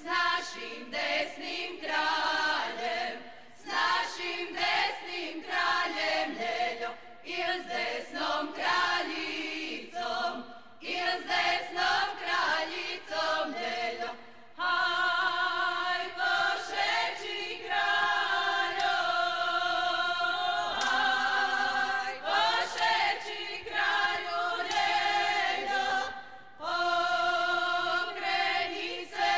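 Group of women singing a Slavonian 'kraljice' folk song a cappella, in unison and chords. The first half comes in short phrases broken by brief pauses; from about halfway the phrases become longer and held.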